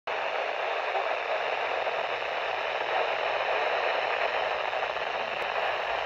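Steady static hiss from a Midland weather radio's small speaker, tuned to the 162.525 MHz NOAA Weather Radio channel.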